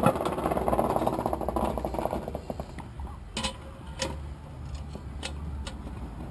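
Cast iron Dutch oven lid clanking down, with crackling from the pot for the first couple of seconds. Then five or six light metal clinks from the lid lifter and the wire bail handle.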